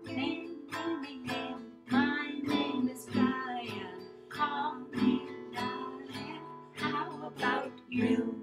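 Acoustic guitar strummed in a steady rhythm, about two to three strums a second, with voices over it.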